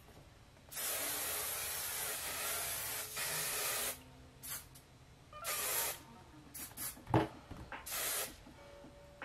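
Aerosol hairspray being sprayed: one long spray of about three seconds, then several short bursts. A sharp click about seven seconds in.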